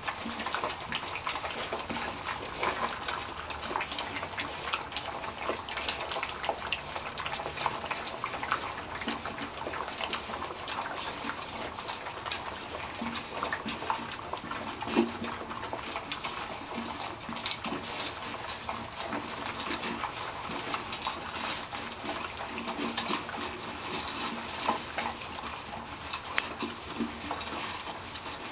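A litter of puppies lapping and eating together from a shared feeder: a busy, continuous wet lapping and slurping with many small clicks.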